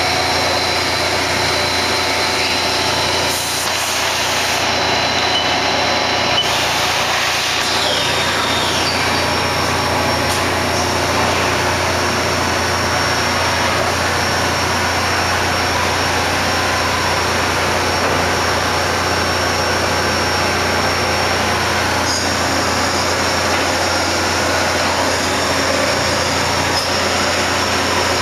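Haas TM-1 CNC vertical mill running under power: a steady mechanical hum with a high whine that shifts briefly a few seconds in.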